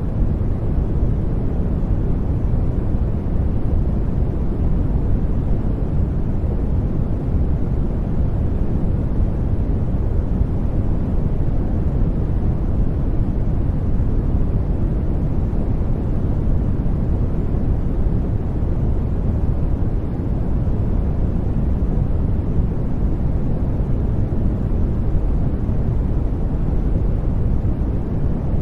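Steady generated noise of the white-noise kind, heaviest in the low end and thinning out toward the highs, giving a deep, even rush with no change or events.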